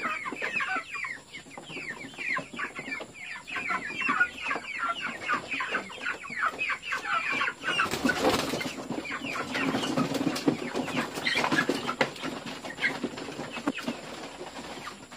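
A flock of hungry white chickens calling without pause in short falling chirps, many a second. About eight seconds in there is a brief rush of feed poured into a plastic trough feeder, and the calling goes on over it.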